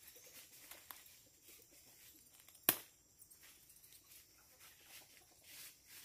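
Faint background ambience with a few tiny ticks, and one sharp, brief click about two and a half seconds in.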